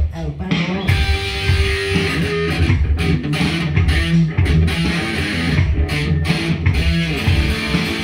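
Electric guitar played through a small combo amplifier: an instrumental passage without singing, with held notes over a full low end.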